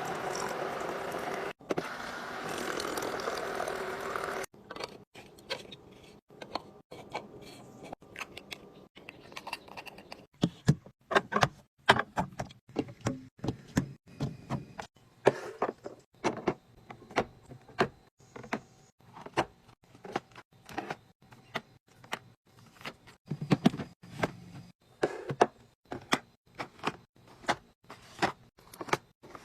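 Items being handled and put away in a mini fridge restock. About four seconds of steady rushing noise cut off abruptly, then a run of irregular sharp clicks, taps and knocks from containers and packaging being handled and set down.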